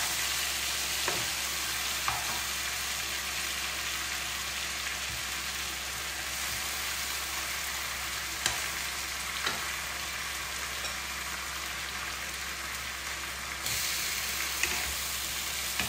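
Marinated mutton pieces sizzling as they shallow-fry in ghee and oil in a non-stick wok, with a few light taps of the spatula as the pieces are turned. The sizzle gets louder near the end.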